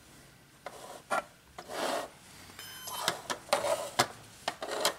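Scrabble Flash electronic letter cubes being slid, swapped and knocked together on a tabletop: a string of rubbing scrapes and sharp clicks, busier in the second half.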